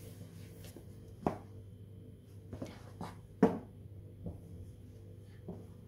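Stiletto high heels tapping on a hard tile floor: several sharp clicks at irregular intervals as the wearer steps and shifts her feet, the loudest about a second and about three and a half seconds in, over a low steady hum.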